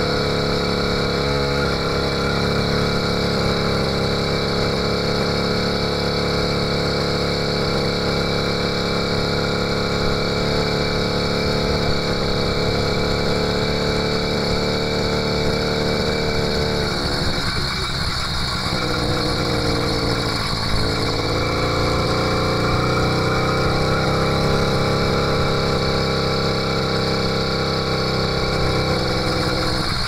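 80cc two-stroke bicycle engine kit running while riding, a steady buzz at cruising revs. About two-thirds of the way through, the revs drop and waver twice, then pick back up to a steady pitch.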